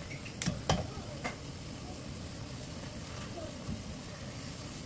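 Stew bubbling at a hard boil in an earthenware ttukbaegi pot over a gas burner, a steady bubbling rumble. A few sharp clicks come between half a second and a second and a half in.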